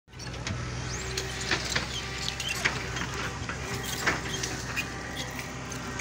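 Engine of earth-moving machinery running steadily with a low hum, with scattered sharp clicks and knocks over it.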